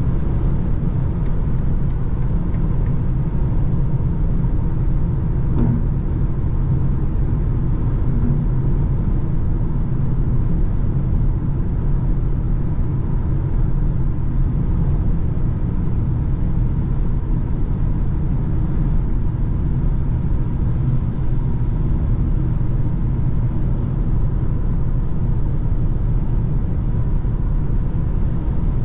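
Steady in-cabin road noise of a BMW cruising on a motorway: an even low rumble of tyres, wind and engine, with no change in speed or revs.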